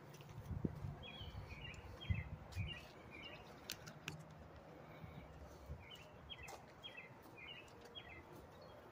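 A small bird singing two phrases of quick, short falling chirps, about a second in and again about six seconds in. Under the song is a faint low rumble that fades out about halfway, and a couple of dull thumps near the start.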